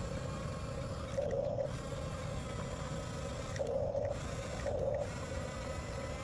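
Huina 1/14 scale RC bulldozer's electric drive motors and gearboxes running, with a steady mechanical clatter. Three brief louder whines come about a second in, near four seconds in, and just under five seconds in.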